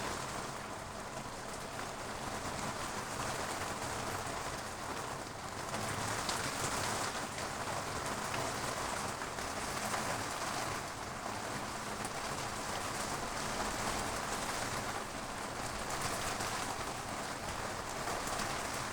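Steady rain falling, a continuous hiss of drops on surfaces that swells and eases slightly.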